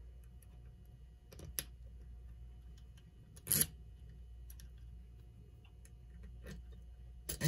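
Small clock movement parts being handled and fitted together by hand: scattered light clicks, with louder knocks about one and a half seconds in, about three and a half seconds in and near the end, over a faint steady low hum.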